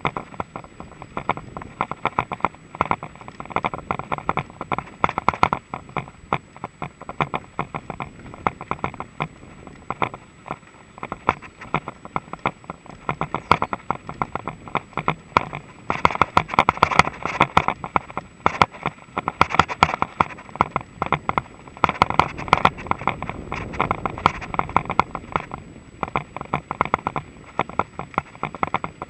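Mongoose XC Salvo Comp full-suspension mountain bike rattling and clattering as it rides over a rough grass-and-sand trail, a dense stream of rapid knocks from the bumps. It is busier and louder in the middle stretch.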